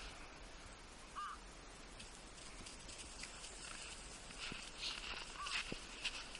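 Footsteps crunching in snow, a walker and a small dog on a leash, growing stronger in the second half. Two short high calls sound about four seconds apart.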